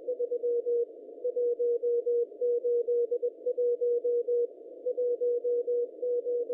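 Morse code telemetry beacon of the AO-7 amateur radio satellite, received in Mode A: a steady mid-pitched tone keyed on and off in dots and dashes over receiver hiss, with short pauses between groups. The beacon is still transmitting after more than 51 years in orbit.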